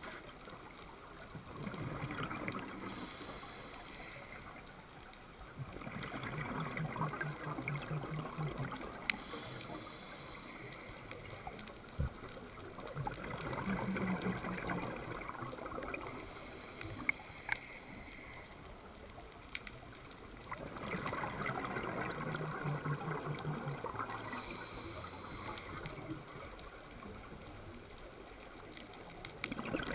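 Scuba diver breathing through a regulator underwater: four bubbling, rattling bursts of exhaled air a few seconds apart, with a short hiss from the regulator between them.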